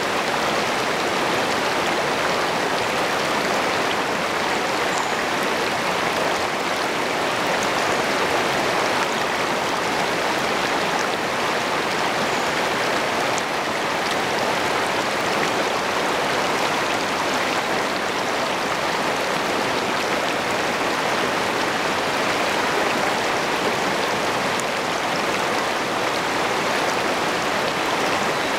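Shallow river rapids rushing over rocks close to the microphone: a steady, even rush of water.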